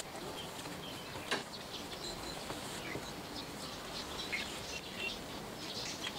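Microfiber cloth wiping water off engine-bay parts: faint rubbing with scattered short high squeaks, and a light knock about a second in.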